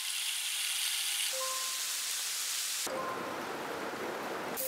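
A row of short rain-like hissing clips, one after another, each begun by a brief two-note electronic chime: imitations of rainfall made with props, the one about a second and a half in being pork belly sizzling on a grill. The last clip near the end is a deeper, fuller rush of noise.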